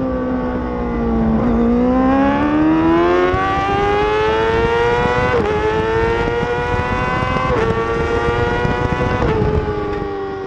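Racing motorcycle engine at speed: the revs fall for a moment and then climb again under acceleration, with three quick gear changes, each a brief dip in pitch, about five and a half, seven and a half and nine seconds in.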